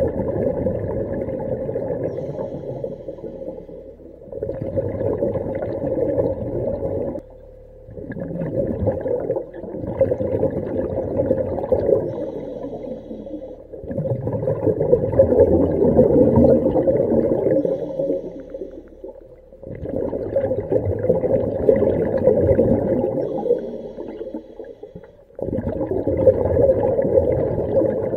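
A diver breathing underwater through a hookah rig's regulator: rumbling, bubbling surges a few seconds long, one after another with brief dips between.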